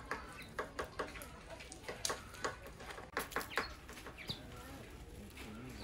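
Birds calling in a quick series of short, clucking calls.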